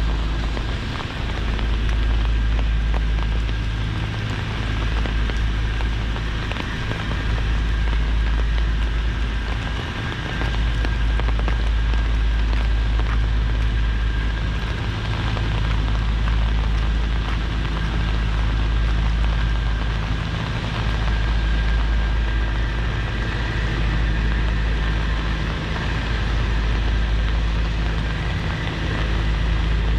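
Steady heavy rain falling and pattering on hard surfaces, with a deep steady rumble underneath.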